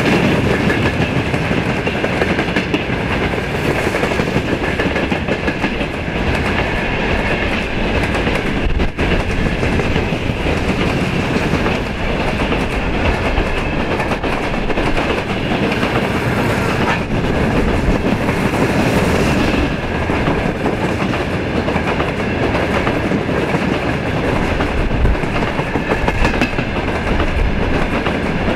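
Freight train of open wagons rolling past at speed, wheels clattering over the rail joints, with a steady high-pitched squeal from brake shoes held on the wheels, hard enough that the shoes are burning.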